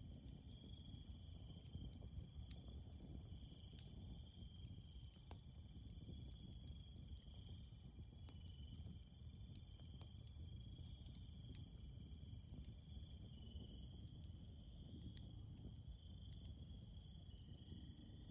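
Faint, steady chorus of night insects: a high continuous trill, with a weaker lower one that drops out about two-thirds of the way through and another that comes in near the end. Scattered faint crackles and pops come from a burning wood campfire.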